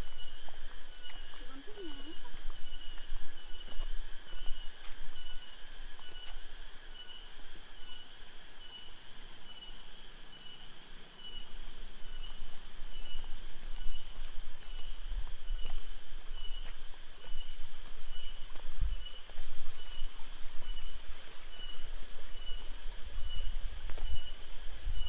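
Chorus of insects calling in a steady pulsing rhythm, about two pulses a second, with low rumble and a few dull thumps underneath.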